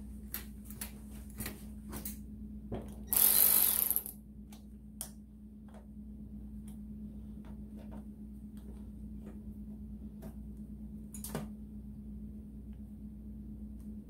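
Scattered light clicks and knocks of hands working with tools and parts, with one loud burst of noise lasting about a second about three seconds in, over a steady low hum.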